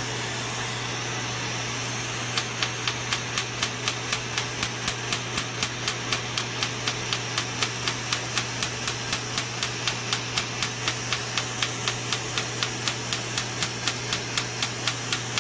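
Erbium:YAG laser handpiece firing pulses at facial skin, starting about two seconds in as a fast, even train of sharp snapping pops at about four a second, at a raised pulse rate. Each pop is a pulse vaporising the outer skin layer. A smoke evacuator's steady suction hiss runs underneath.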